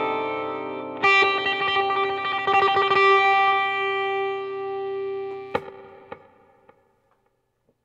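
Electric guitar, a sunburst Les Paul-style, closing a solo: a new note struck about a second in, a quick flurry of notes, then a long held note that rings and fades away, with two sharp clicks near the end.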